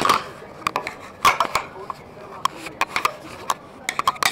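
Irregular light clicks and knocks, a handling clatter from the camera and nearby objects being moved about, with two louder clatters near the start and about a second in.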